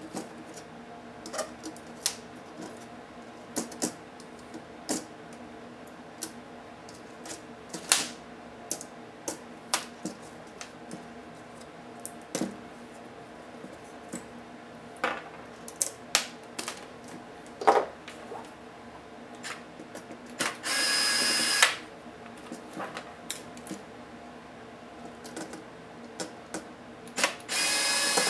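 Small clicks and knocks of a screwdriver and plastic netbook chassis parts being worked, then twice a small cordless electric screwdriver runs with a steady whine for about a second, about two-thirds in and again at the very end.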